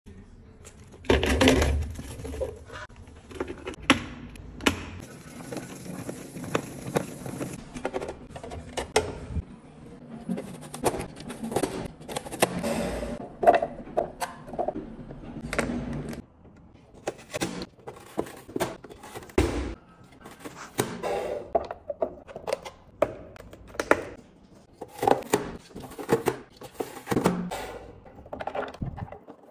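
A plastic vegetable chopper and its clear prep containers being handled on a counter: a long run of irregular clicks, knocks and thunks, with diced vegetables clattering from one plastic container into another.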